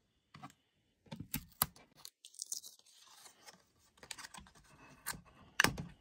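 Hands working on a plastic console with a paper template and painter's tape: scattered scratches, light tearing and clicks, the loudest just before the end.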